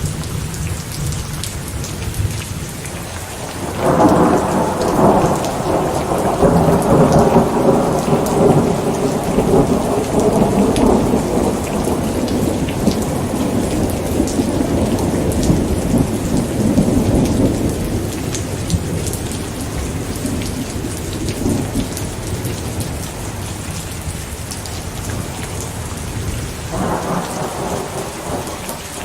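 Steady rain falling, with a long low roll of thunder building about four seconds in and fading away over the next dozen seconds; another rumble of thunder begins near the end.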